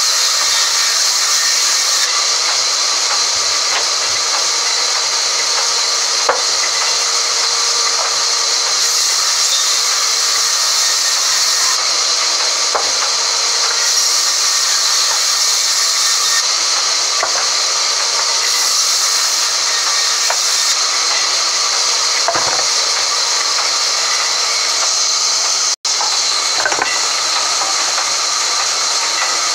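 Sawmill band saw running, its blade cutting lengthwise through timber as a slab is fed through: a loud, steady hiss and whine, with a few faint knocks of wood.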